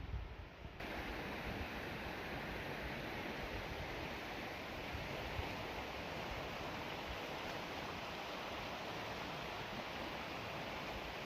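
Steady rush of flowing water, starting abruptly about a second in after a moment of low rumbling.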